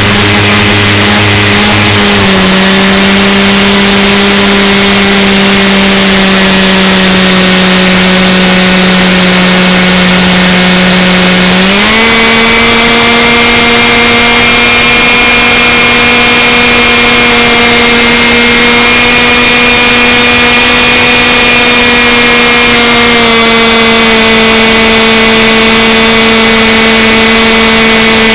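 An engine running at a steady speed, loud and rough. Its pitch rises and holds from about twelve seconds in, then eases down a little about twenty-three seconds in.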